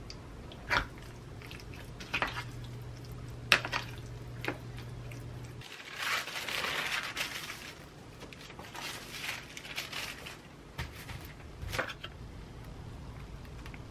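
Kitchen handling sounds: a low steady hum with a few sharp clicks for the first few seconds, cutting off suddenly. Then paper rustling and crinkling as parchment paper and a slice of toast are laid on a bamboo cutting board, with a couple of sharp taps near the end.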